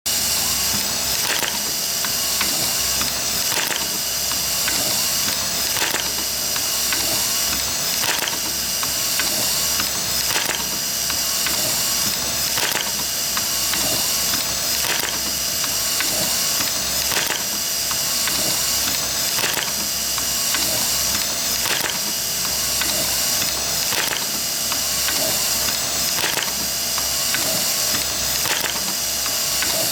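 Automatic soldering robot at work on a D-sub connector: short mechanical clicks and motor movements recur every second or two over a steady hiss.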